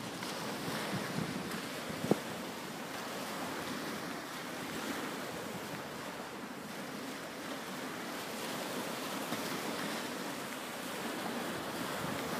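Small waves breaking and washing up a shingle beach, the surf rising and falling gently, with some wind on the microphone. A single short click about two seconds in.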